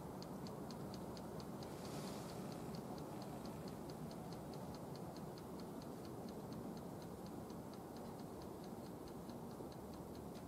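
A steady, rapid ticking, about four ticks a second, over a low background rumble.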